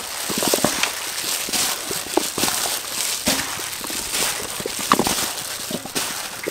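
Plastic-gloved hands mixing flour-coated raw chicken wings in a large stainless-steel bowl: irregular crinkling and crackling of the gloves and the floured meat as the wings are tossed and squeezed.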